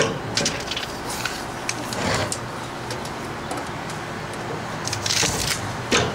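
Scattered light knocks, clicks and rustling from plywood and a steel tape measure being handled, over a steady background hum.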